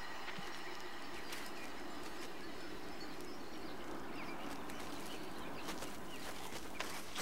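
Steady outdoor ambience from a film soundtrack: an even, quiet hiss with a few faint ticks, more of them near the end.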